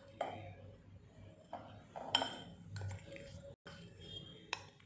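Metal spoon clinking against a glass bowl and glass jar as spice powder is spooned in: a handful of light, separate clinks spread over a few seconds.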